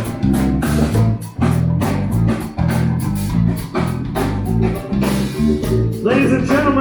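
Live band playing an instrumental groove: bass guitar and drum kit with guitar, a steady beat. A higher melodic part comes in near the end.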